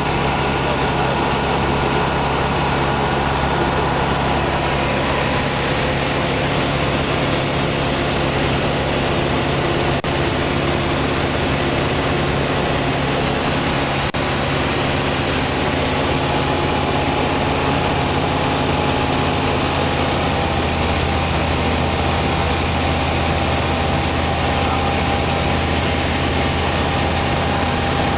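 Ultralight aircraft's engine and propeller running steadily in level flight, heard from inside the cockpit with wind noise. The engine note shifts slightly about twenty seconds in.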